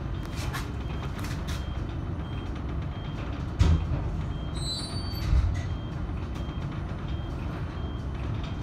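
Tram running along its track, heard from inside the car: a steady low rumble with two loud knocks, about three and a half and five and a half seconds in, and a brief faint squeal between them.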